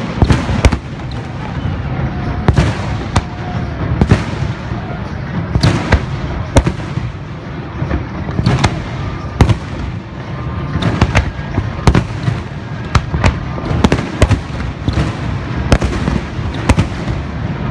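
Aerial firework shells bursting overhead in a steady run of sharp bangs, about one to two a second, over a continuous low rumble.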